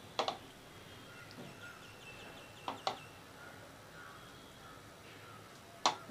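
Utensils knocking against a nonstick pan while a thick peanut-and-sugar mixture is stirred with a silicone spatula. There are sharp knocks just after the start, two close together near the middle, and one near the end.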